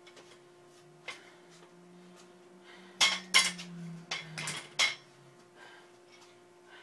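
Metal clanking from a loaded barbell's plates and collar being handled and adjusted: a light knock about a second in, then a cluster of four sharp clanks between about three and five seconds in.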